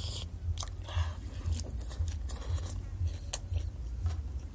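Close-up mukbang eating sounds: a person chewing boiled chicken, with irregular wet mouth clicks and smacks, over a steady low hum.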